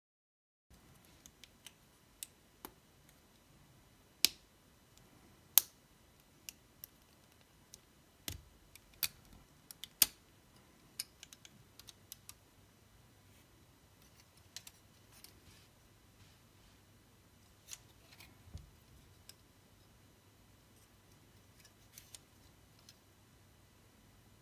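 Hard plastic model-kit parts of a Bandai SDW Heroes Gunpla clicking and snapping as they are pressed and fitted together: scattered sharp clicks, a few of them loud, with quiet gaps between.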